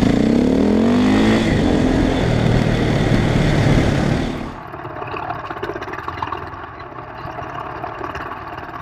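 KTM 450 EXC's single-cylinder four-stroke engine accelerating, its pitch rising in the first second, then running loud until about four and a half seconds in, when the throttle is closed and it falls to a much quieter low running.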